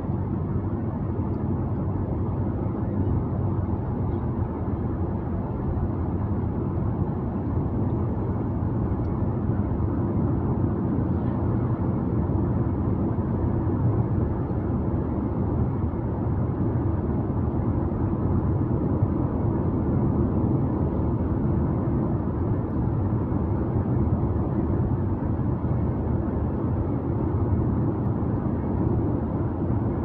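Steady low-pitched drone of a car driving along the road: engine and tyre noise, even throughout with no sudden events.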